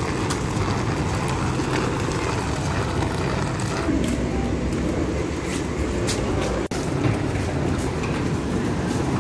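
Hard suitcase wheels rolling over wet asphalt and paving, a steady rumble with a few small clicks, cut off for a moment about two-thirds of the way through.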